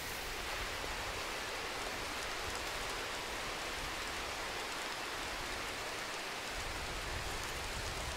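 Steady rushing forest ambience: an even hiss with no distinct events.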